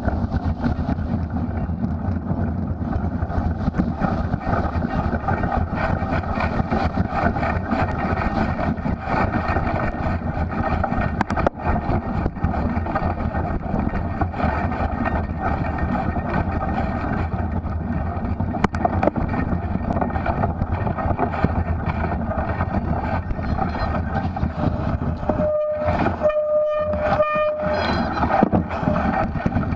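Steady wind and riding noise on a cyclist's camera microphone during a cyclocross race. Near the end, a short pitched tone sounds in about three quick pulses.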